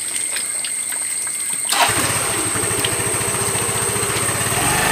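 Motor scooter's small petrol engine starting about two seconds in, then idling steadily.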